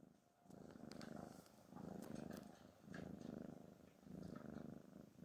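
Domestic cat snoring faintly, a low buzzing rumble that rises and falls with each breath, four rounds about a second apart.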